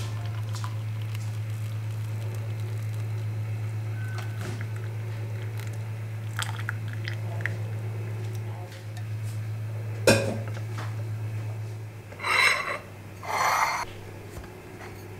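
Kitchenware sounds: light clinks of a steel saucepan and a tea strainer against ceramic mugs, then one sharp knock about ten seconds in, the loudest moment. Two short rustling bursts follow near the end as croissants are handled, all over a steady low hum.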